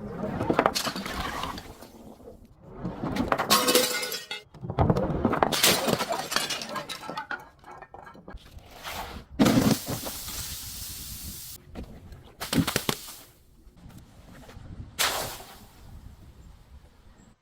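Glass being crushed and breaking in a series of crunching, crackling bursts, about six in all, the sharpest about nine and a half seconds in.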